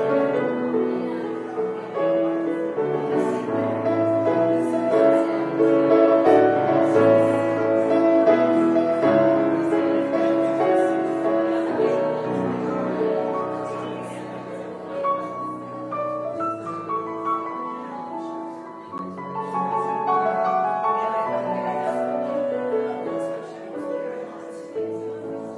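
Instrumental prelude music played on a keyboard, with sustained chords that change every second or so.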